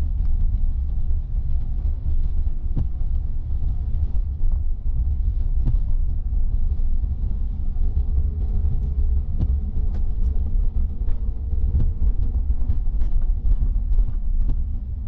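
In-cabin sound of a car driving on a wet city street: a steady low rumble of engine and tyres, with scattered light ticks throughout.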